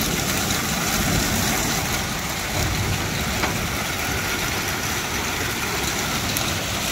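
Heavy hail pelting pavement, parked cars and a windowsill: a steady, dense clatter, with a few sharper ticks of stones striking close by.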